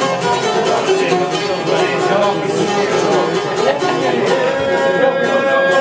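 Folk music on long-necked plucked lutes, two played together with fast, dense plucking, a long held note sounding near the end.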